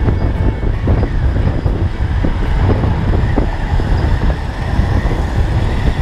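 Steady wind rumble on the microphone of a rider on a Honda Beat scooter at road speed, with the scooter's engine and passing road traffic underneath.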